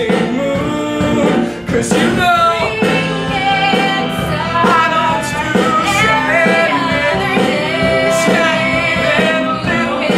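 Voices singing a song from a rock musical over a live band accompaniment.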